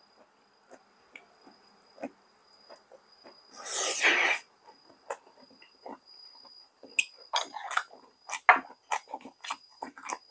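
Close-miked chewing: wet mouth clicks and smacks of someone eating, sparse at first and denser from about seven seconds in. About four seconds in comes one loud breathy noise, a slurp or a sharply drawn breath.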